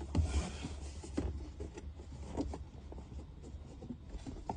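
Hands handling a car's plastic air-conditioning blower fan, with scattered light clicks, knocks and rubbing, over a steady low hum.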